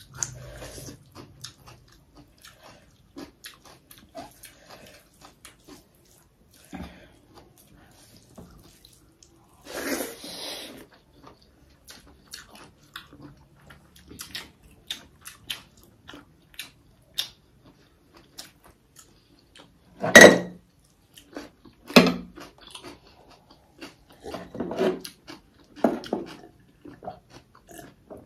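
Close-up eating sounds: chewing and mouth smacks over a meal of pork and buffalo curry with rice, with many small scattered clicks of food and utensils on a plate. A brief noisy burst comes about ten seconds in, and two sharper knocks come about twenty and twenty-two seconds in.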